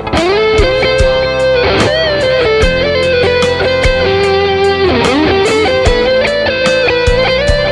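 Ibanez AZ electric guitar playing a held, singing lead melody with string bends, over a backing track with drums and bass.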